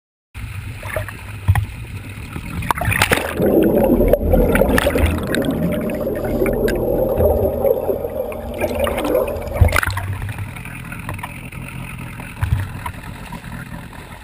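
Water rushing and gurgling over a waterproof action-camera housing as it goes under the lake surface alongside a moving boat, with a splash as it plunges in about three seconds in and another as it comes out near ten seconds. Underneath, the boat's motor rumbles low.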